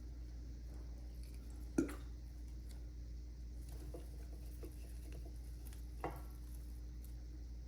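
A few light taps and clicks of things being handled, the loudest about two seconds in and another about six seconds in, over a steady low hum.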